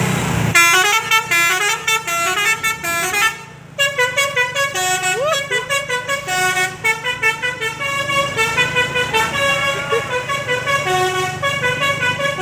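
Tour bus's 'Basuri' telolet horn playing its melody: a quick run of stepped tooting notes that breaks off briefly about three and a half seconds in, then carries on over a low steady hum.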